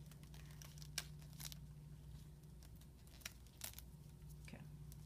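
Faint scattered clicks and crinkles of gloved hands handling a syringe and a plastic dressing, over a steady low hum.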